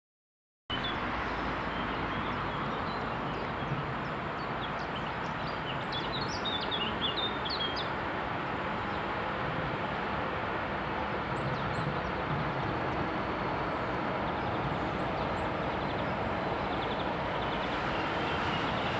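Birds chirping over the steady rolling noise of a distant container freight train hauled by a Siemens Taurus electric locomotive as it approaches.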